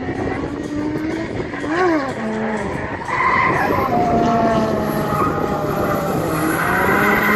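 Drift car's engine at high revs, its note jumping up and down sharply about two seconds in. From about three seconds it is louder and held steady, with tyres squealing as the car slides sideways through a corner.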